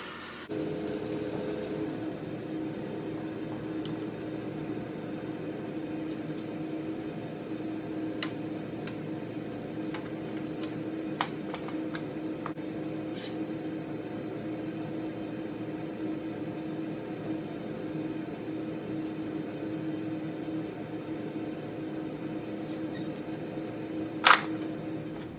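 Steady mechanical hum with a couple of steady tones, a few light clicks, and one sharp, louder click about a second before the end.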